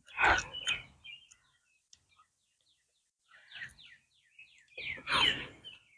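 Birds chirping: a quick run of short, falling notes. Two louder bursts of noise come at the start and near the end.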